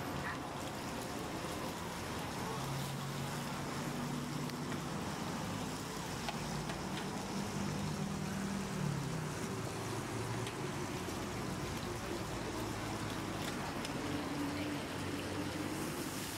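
Steady background noise of a street-food kitchen, with faint clinks of utensils and a low humming drone that drops in pitch about nine seconds in.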